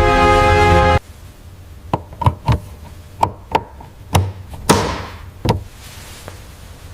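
Music that cuts off abruptly about a second in, followed by about eight sharp knocks and taps at irregular intervals over the next few seconds.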